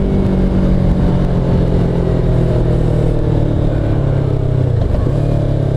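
Motorcycle engine running steadily, with a brief dip in its note about five seconds in.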